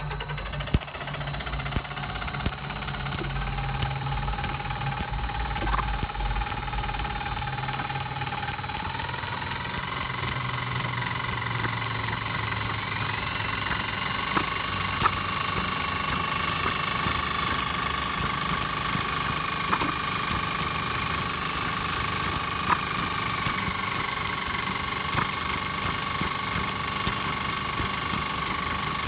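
LEGO-built two-stroke combustion engine with spark ignition running fast: a dense, rapid clatter of firing. A whine rides over it and climbs in pitch in a few steps as the engine speeds up.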